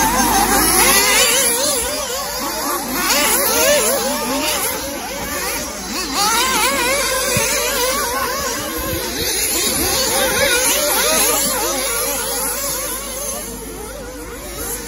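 Several 1/8-scale nitro RC buggies racing, their small two-stroke glow engines revving up and down in quick, overlapping whines.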